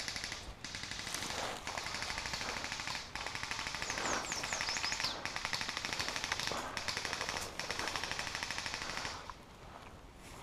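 Airsoft electric guns firing full-auto in several long bursts with short breaks, a fast rattle of many shots a second, stopping about nine seconds in.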